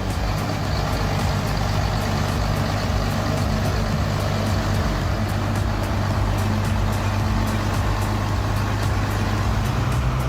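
Engine of a custom-built timber-hauling truck running steadily under load.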